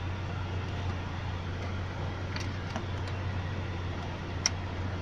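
UAZ Patriot engine idling with the air-conditioning fan blowing at full through the vents, a steady low hum under an even hiss. One sharp click about four and a half seconds in.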